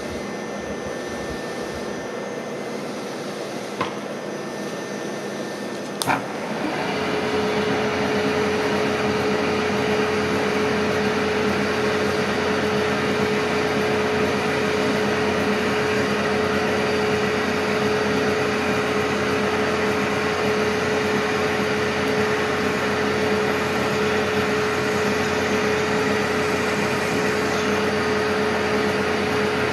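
Milling machine running with a steady mechanical hum, a small drill in its spindle over a steel flange. About six seconds in there is a sharp click, and the machine gets louder, with a steady hum tone added that holds from then on.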